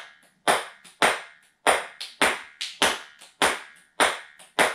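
A small ping-pong-type ball dribbled by hand on a wooden floor: a sharp clack with each bounce, about eight in quick regular succession, with fainter taps in between.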